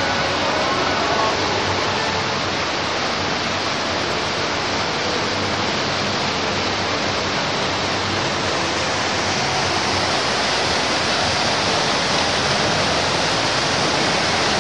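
Water gushing steadily from a carved stone mask fountain spout, a continuous rushing splash.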